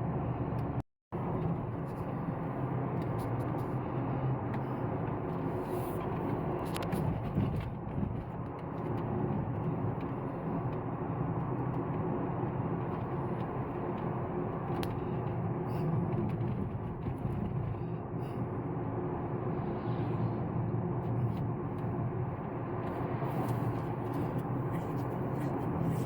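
A car driving along a road: steady engine and tyre rumble with scattered small knocks and rattles. The sound drops out for a moment about a second in.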